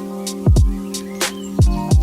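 Background music with a steady beat: deep kick drums that drop in pitch, hi-hat ticks and a held chord.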